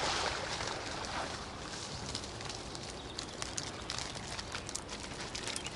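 Fish keepnet being hauled out of the river: a rush of water streaming off the mesh in the first second or so, then a patter of dripping and small crackling ticks as the net hangs.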